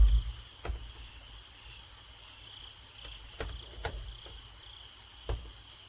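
Insects, likely crickets, chirping steadily in a repeating pulse, with scattered sharp clicks and knocks over a low hum.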